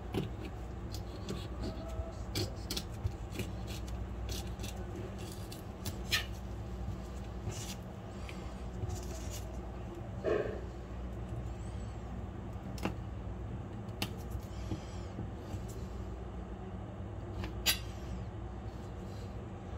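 Chef's knife tapping and scraping on a plastic cutting board as raw fish fillets are sliced: irregular light clicks, a few of them sharper, over a steady low room hum.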